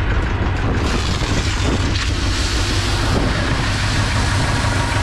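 Granular fertilizer pouring from a slit big bag onto the grid of a spreader hopper, a steady hiss that swells about a second in, over the steady hum of a tractor engine idling.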